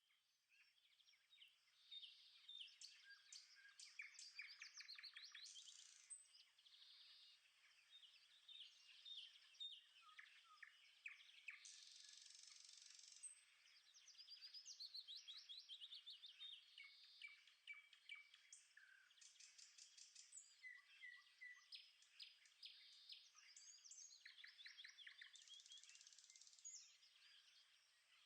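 Faint chorus of several songbirds singing and calling over one another, with rapid trills and repeated chirps.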